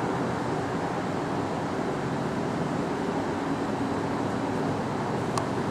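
Steady outdoor background noise, an even hiss and rumble with no distinct event, and a faint click near the end.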